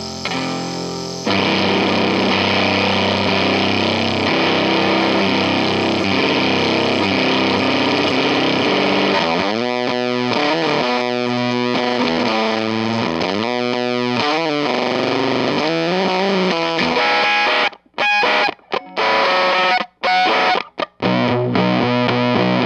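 Electric guitar played through a Chase Bliss Bliss Factory fuzz pedal, a Fuzz Factory–style fuzz, heavily distorted. The pitch wavers and glides up and down in the middle. Near the end the sound cuts off abruptly several times, stopping and starting.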